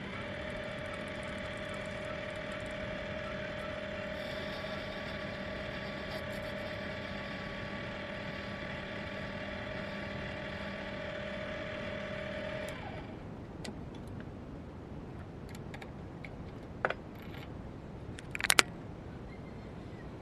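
Proxxon PD 250/E mini lathe running steadily with a steady whine, then switched off about two-thirds of the way through, the whine cutting out suddenly. After it stops come a couple of sharp metal clicks, the second the loudest, as the finished punch is handled in the chuck.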